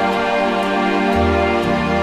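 Background music: a sustained instrumental piece with held chords and a slow bass line that changes note about a second in.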